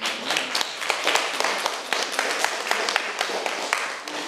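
Audience applauding: a dense run of hand claps that thins and dies away near the end.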